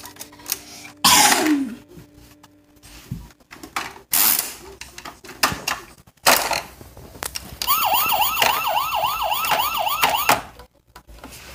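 Electronic siren from a PAW Patrol toy fire truck's speaker, a fast wail sweeping up and down about three to four times a second for a few seconds late on. Before it come several short, noisy bursts of sound.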